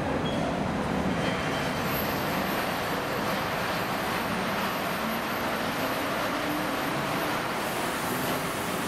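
SBB Re 4/4 electric locomotive hauling a passenger train along an underground station platform, a steady rumble of wheels on rail with a faint motor hum as it approaches.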